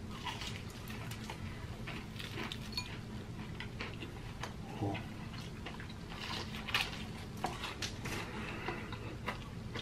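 People chewing KFC Extra Crispy breaded chicken tenders close to the microphone: quiet, scattered small crunches and wet mouth clicks at an uneven pace.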